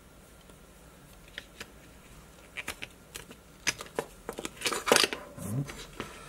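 Hard plastic coin capsules clicking and clacking as they are handled and pressed into a presentation tray. A scatter of sharp clicks that grows busier and louder in the second half.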